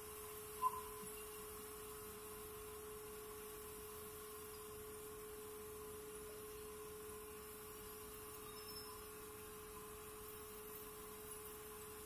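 A faint, steady hum on a single even tone, with one short blip less than a second in.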